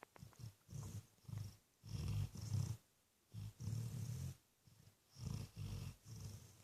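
Sleeping pet snoring: low breaths coming in short bursts, with brief quiet pauses between them.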